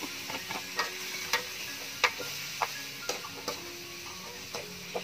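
A metal spatula knocks and scrapes against a steel wok as chunks of raw pork trotter are tipped in and stirred. There is a run of sharp clinks, the loudest about two seconds in, over a light sizzle of oil and sauce.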